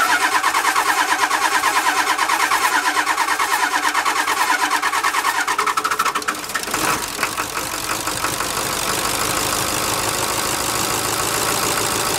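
Ford 7.3L Power Stroke V8 turbo diesel cranking and catching on its first start after rebuilt injectors with new O-rings were fitted. It pulses evenly and loudly for about six seconds, then about seven seconds in it settles into a steadier idle.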